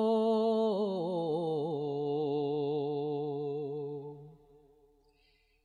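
Unaccompanied male voice holding the final note of a sung line of a Dawoodi Bohra marsiya (noha), then sliding down through a wavering melisma and fading out about four seconds in.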